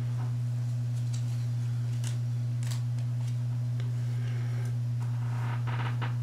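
A steady low electrical hum, with faint clicks and soft rustles of trading cards being handled and set down by gloved hands.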